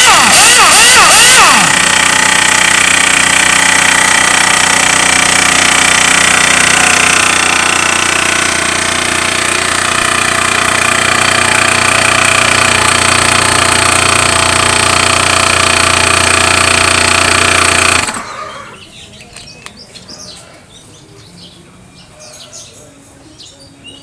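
Makita AC401NX air compressor running steadily and loudly, with a fast rhythmic pulsing for the first second or so. It shuts off abruptly about eighteen seconds in, leaving only faint background sound.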